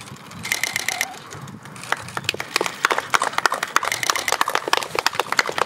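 A small audience clapping, scattered at first, then a steady patter of many hands from about two seconds in, as a song ends.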